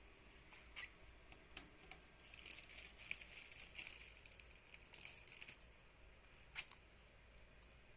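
Faint steady high-pitched whine from a small electric silver-melting furnace, with scattered light crackles and two sharper clicks about six and a half seconds in.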